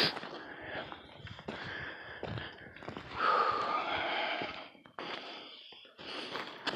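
A person breathing heavily, a few long breaths with short pauses between them.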